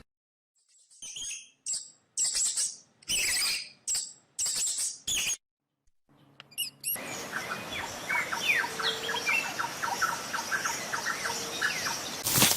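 A run of about six short, high-pitched squeaky calls, then a dense chorus of quick bird-like chirps over a steady background hiss.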